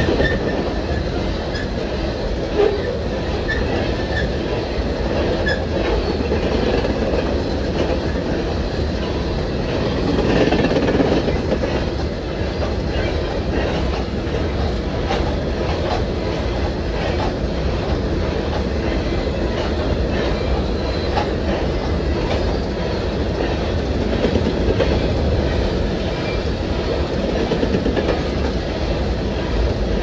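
Freight train of coal hopper cars rolling past close by: a steady rumble of steel wheels on rail with repeated clickety-clack as the trucks cross rail joints, swelling briefly about ten seconds in. Now and then there is a faint wheel squeal.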